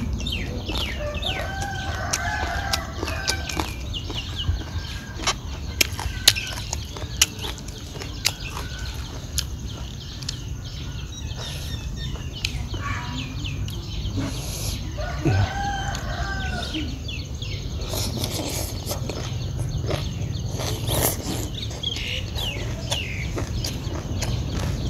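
Two drawn-out chicken calls, one about two seconds in and one past the middle, with small birds chirping. Over them comes the close sound of someone eating raw vegetables and noodles, with sharp crunching clicks and mouth smacks.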